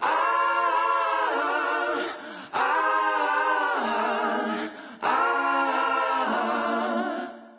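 Background music: a sung vocal in three long held phrases, fading out near the end.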